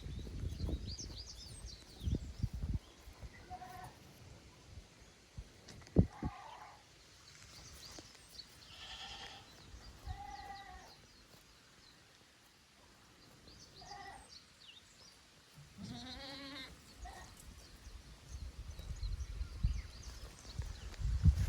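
Goats bleating, about six short calls spread apart, the longest and lowest one about two-thirds of the way through. Wind rumbles on the microphone at the start and again near the end.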